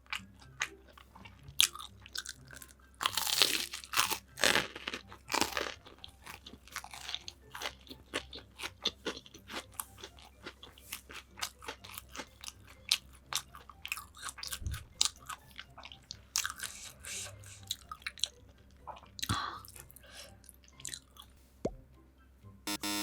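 Close-miked eating: crisp, crackling crunches from bites into crispy fried food, then chewing, with a dense run of crunching a few seconds in.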